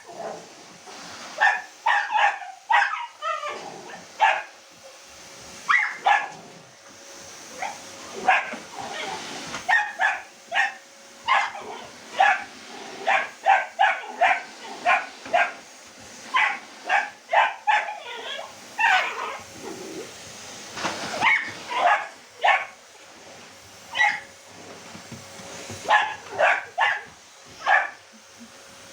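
A dog barking over and over in short volleys of two to four barks, with brief pauses, at a vacuum cleaner. A faint steady hum runs underneath.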